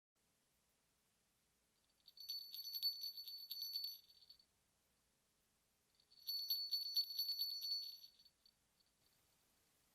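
Sleigh bells shaken in two bursts of jingling, each about two seconds long: the first starts about two seconds in, the second about six seconds in. Each burst is a rapid run of small strikes under a steady high ring.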